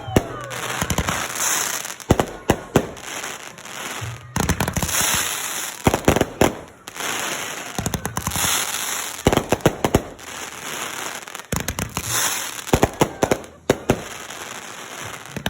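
Fireworks going off: clusters of sharp pops and bangs every second or two over a continuous hissing crackle.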